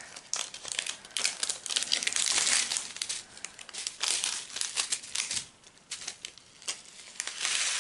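Thin plastic bags of diamond-painting drills crinkling and rustling as they are handled and cut open with scissors, coming in uneven stretches.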